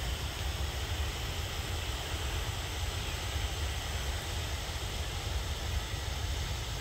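Steady outdoor background noise: a low, fluttering rumble with an even hiss over it and no distinct events.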